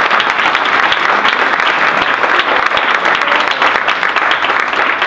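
Audience applauding, steady and dense throughout.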